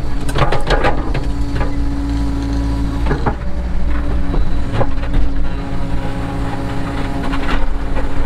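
Cat 307 excavator's diesel engine running steadily, with several sharp clattering knocks from the bucket and logs, a cluster in the first second and single knocks about 3, 5 and 7.5 seconds in.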